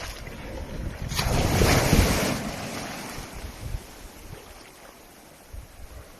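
Surf on the beach: a wave surges in with a broad hiss about a second in, then fades away. Wind buffets the microphone with low rumbling thumps.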